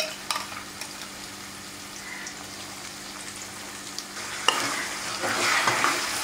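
Chicken pieces sizzling in hot oil with shallots in a metal kadai. About four and a half seconds in, a ladle starts stirring, scraping against the pan, and the frying grows louder.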